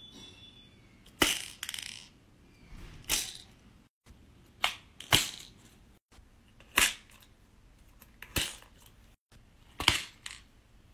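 Plastic pin art toy: fingers press into the grid of pins, which slide through the frame with a short sharp clatter, repeated about eight times a second or two apart.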